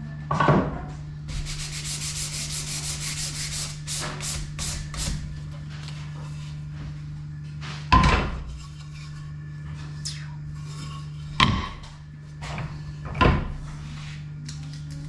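Wooden board being hand-sanded in quick, even back-and-forth strokes for a few seconds, then a few slower strokes. Wooden boards are knocked down onto the bench four times, the loudest knock about eight seconds in.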